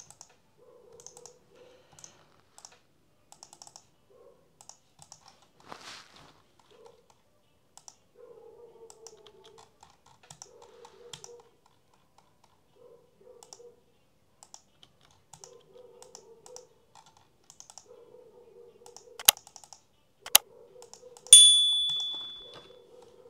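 Faint computer keyboard and mouse clicks from someone working at a computer. Near the end, two sharp clicks and a ringing bell ding: a subscribe-button sound effect.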